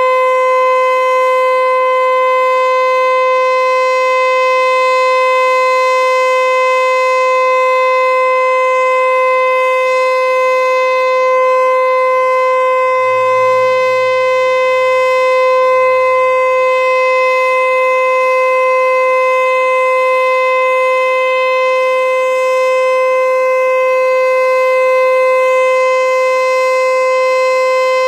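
Federal Signal Eclipse 8 electronic outdoor warning siren sounding the alert signal: one loud steady tone held at a constant pitch, with no rise or fall.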